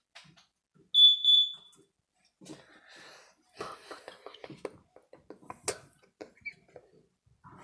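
Two short, loud electronic beeps in quick succession, followed by irregular soft clicking and rustling.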